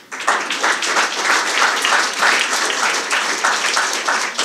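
Audience applause: many people clapping at once, beginning a moment in and keeping up steadily.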